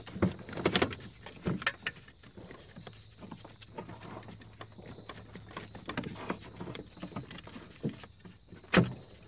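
Plastic clicks and light knocks as the engine-bay fuse box housing of a Toyota Tundra is worked into place by hand, with a sharper click near the end as its clips catch.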